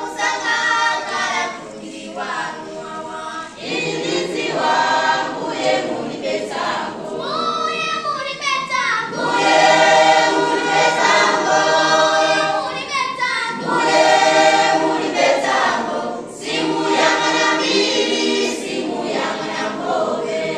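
A choir of young people, boys and girls, singing together in phrases with short breaks every few seconds.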